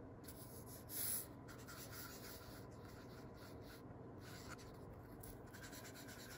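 Felt-tip brush marker drawing on paper: faint, soft scratching of the nib as it traces lines, with one louder stroke about a second in.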